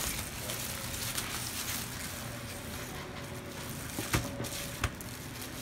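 Quiet room background with two short knocks, about four and five seconds in.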